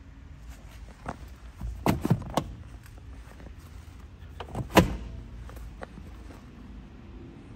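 A few sharp clicks and knocks over a steady low hum: one about a second in, three in quick succession around two seconds, and the loudest pair about five seconds in.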